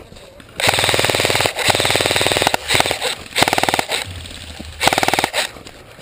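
Airsoft gun firing on full auto: about five bursts of rapid shots in a few seconds, the first two close to a second long, the last ones short.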